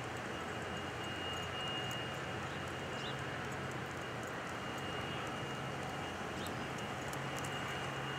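Steady outdoor background noise of distant traffic: an even hum with a faint thin high tone running through it.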